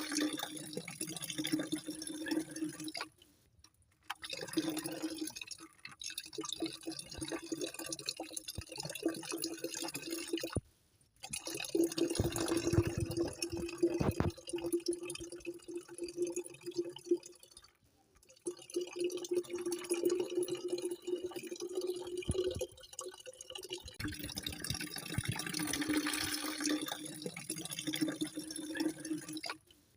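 Running water splashing and trickling, with a steady low hum beneath it, broken by three short silences where it stops and restarts.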